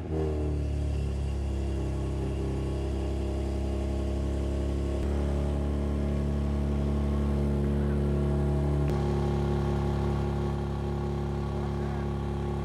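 BMW G80 M3 Competition's twin-turbo inline-six, breathing through a Valvetronic Designs titanium exhaust with sport cats, running at a steady high idle just after its first start. The idle eases down a little about ten seconds in.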